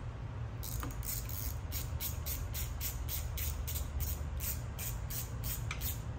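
Allen key turning the set screw of a 4-gauge fuse holder's wire terminal, a quick, even run of small metal ticks about three to four a second as the screw is tightened down on the wire, over a steady low hum.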